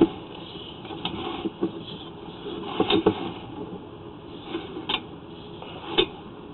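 Sewer inspection camera equipment, its push cable and camera head being worked down the pipe: a handful of irregular knocks and clicks over a steady low noise, the sharpest at the start and again about three and six seconds in.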